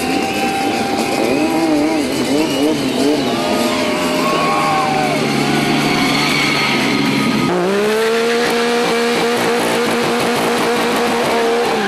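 Sport motorcycle engine revving up and down during stunt riding. About two-thirds of the way through, it holds at steady high revs while the rear tyre spins and smokes in a standing burnout, then drops just before the end.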